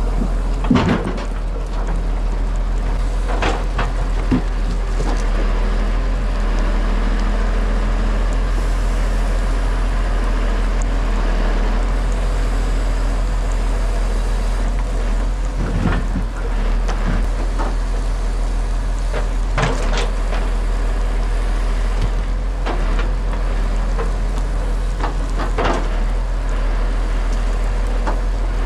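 Timber truck's engine running steadily during log loading, with a few sharp knocks and clunks from time to time.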